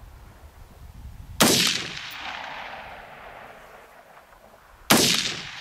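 Two shots from a 5.56 mm AR-15 precision rifle with an 18-inch barrel, about three and a half seconds apart. Each shot is followed by an echo that trails off over about a second.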